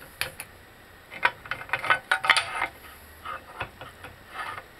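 Metal tools and parts clinking and knocking against each other: a series of short, separate clicks with a quick cluster in the middle, as a control arm and the press it sits in are handled.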